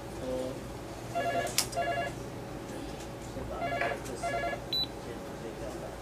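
DF750K DESFire/Mifare card reader with metal keypad beeping: two short double beeps about two and a half seconds apart, with a sharp click between the beeps of the first pair.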